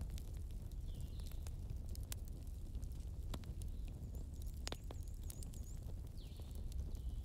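Forest bonfire ambience: a fire crackling over a low rumble, with scattered pops and one louder snap in the middle. Birds chirp over it: a short call early on, a run of about six quick notes in the middle, and another call near the end.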